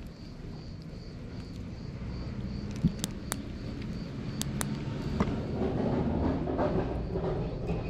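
Cat crunching dry kibble: a few sharp crunches around the middle, over a low rumble that grows louder in the second half.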